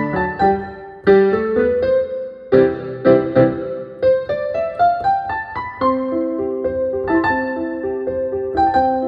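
Digital piano played with both hands: a melody over repeating broken-chord figures. There is a short break about a second in, then a new chord starts the next phrase.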